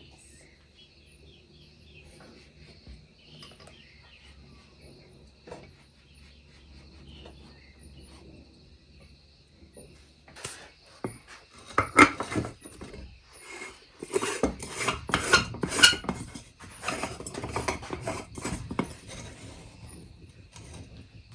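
Cups, spoons and dishes clinking and clattering while coffee is made. The knocks and scrapes start about halfway through and come thick and fast after that. Before them there is only a faint steady chirring of insects.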